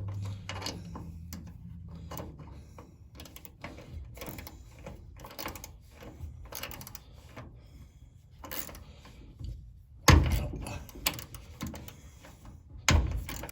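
Irregular metallic clicking and light knocking of hand tools working on car door hinge hardware, with two loud knocks near the end.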